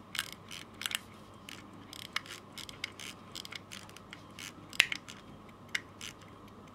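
Crown of a Les Routiers Suisses 17-jewel mechanical pocket watch being turned to wind it: the click and ratchet wheel clicking in irregular runs, with one sharper click about five seconds in.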